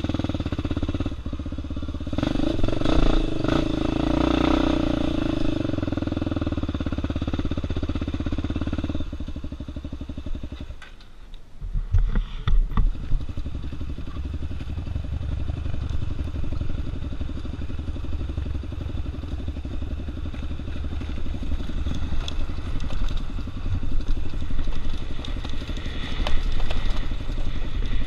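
Dirt bike engine revving under load, easing off briefly about ten seconds in, then pulling again with the throttle rising and falling, louder near the end.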